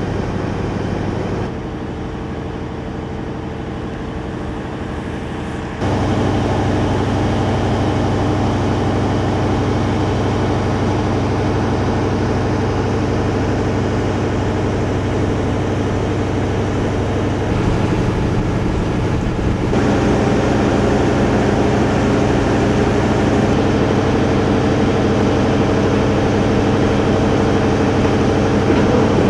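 DB class 601 TEE diesel power car running at a standstill, a steady engine hum with a low drone. It grows noticeably louder about six seconds in.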